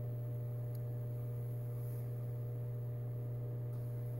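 Steady low electrical hum, unchanging, with fainter higher tones above it.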